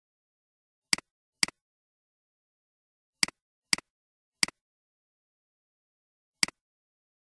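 Computer mouse clicks: six short, sharp clicks with dead silence between them. Two come about half a second apart near the start, two more about half a second apart a little past the middle, then one, and one last click near the end.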